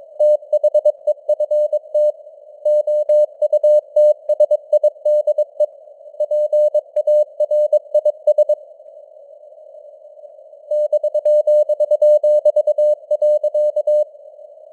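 Morse code sent at 22 words per minute as a single steady beep tone keyed in dots and dashes, over hiss from simulated radio noise. The keying comes in runs with short gaps between them, stops for about two seconds midway while only the hiss continues, then resumes until near the end.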